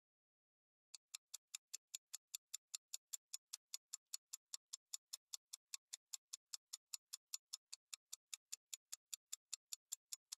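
Countdown-timer ticking sound effect: light, sharp ticks at a steady pace of about five a second, starting about a second in and counting down the time to answer a quiz question.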